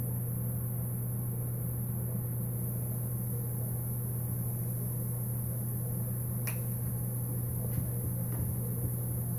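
A steady low hum, with one sharp click about six and a half seconds in and two faint ticks soon after.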